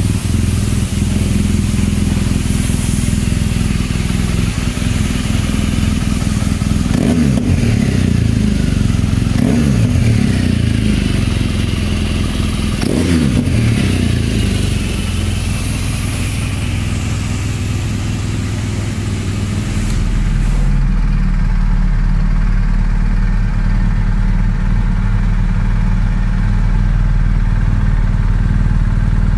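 BMW R 1200 GS boxer-twin engine idling, with the throttle blipped three times, each rev rising and falling back. About two-thirds of the way through it cuts to a GS with an Akrapovic aftermarket silencer idling steadily.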